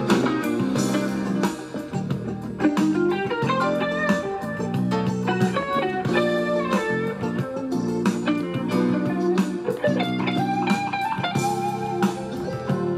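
Background guitar music: a melody of plucked notes stepping up and down over a steady lower accompaniment.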